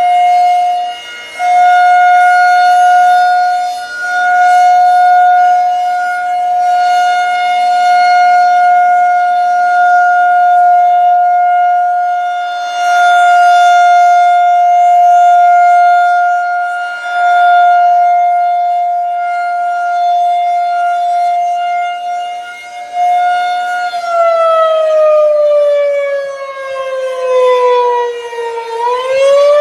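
Federal Signal 2001-130 rotating outdoor warning siren holding a steady tone, swelling and fading in loudness as it turns. Near the end the pitch sinks and then starts to climb again, the steady Alert signal giving way to the rising-and-falling wail of the Attack signal.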